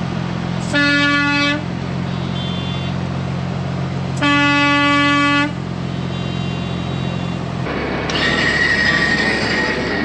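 Semi truck's air horn pulled from the cab: two blasts of about a second each, a few seconds apart, over the steady drone of the truck's diesel engine. Near the end the engine drone gives way to a louder hiss with a high steady tone.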